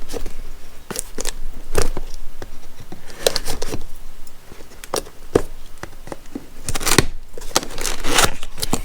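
Packaging being handled and opened: crinkling and tearing with irregular clicks and knocks of handling.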